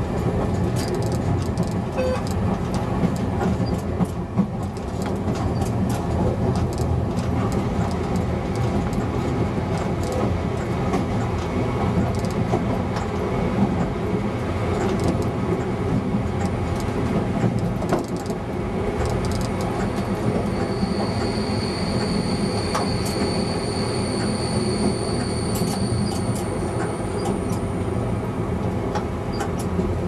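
ČD class 854 diesel railcar running at speed, heard from the driver's cab: a steady diesel drone with the wheels clicking over rail joints. From about two-thirds of the way in, a high steady squeal sounds for several seconds.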